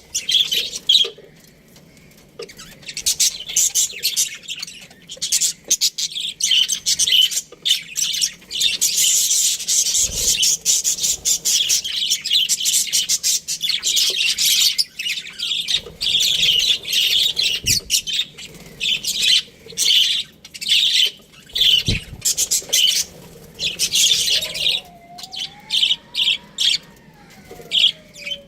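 Budgerigars chattering with fast, high chirps and warbles in quick runs, broken by short pauses. Near the end a lower, slower whistle rises and then falls under the chirping.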